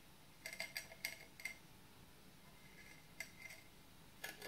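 Drinking glass rim clinking and scraping lightly against a ceramic plate as it is pressed and turned in sugar to coat the rim: a cluster of small clinks about half a second in, then a few more near the end.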